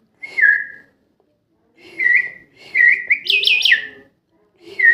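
Pet myna calling in four short bursts of whistled notes, the third a quick run of several notes that climb higher in pitch.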